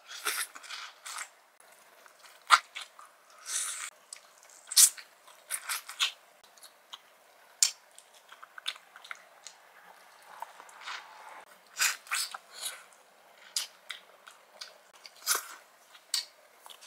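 A person biting kernels off a cob of sweet corn and chewing them, close to the microphone: a string of irregular short, sharp clicks.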